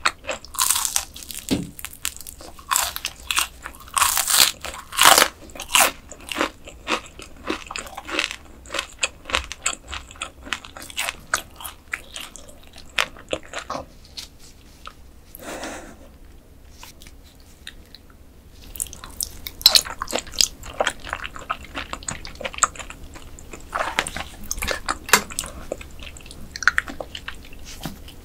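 Close-miked crunching and chewing of mantis shrimp, with a quieter lull in the middle before the crunching picks up again.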